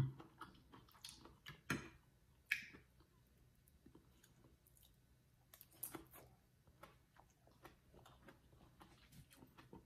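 Quiet eating sounds: faint chewing and scattered clicks of a metal spoon and fork against a plate of soup, with one short louder sound about two and a half seconds in.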